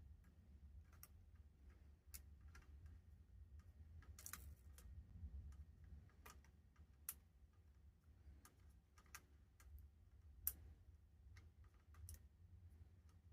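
Faint, irregular small clicks and taps of hand tools working on a circuit board while an LCD's flat flex connection is desoldered, with a brief hiss about four seconds in, over a low steady hum.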